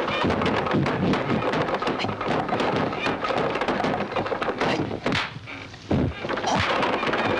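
A rapid run of dull wooden thunks and thuds: feet landing on wooden stools and kicks against wooden training poles during a kung fu workout, with a couple of heavier hits about five and six and a half seconds in.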